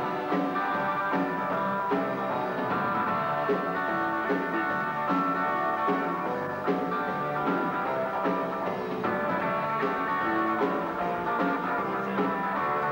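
Live rock band playing an instrumental passage: electric guitar riff over a drum kit, with no singing.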